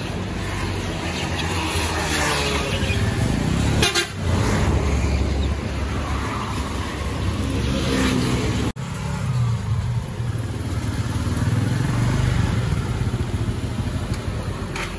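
Road traffic: motor scooters and cars driving past with their engines running, a steady rumble with a brief break partway through.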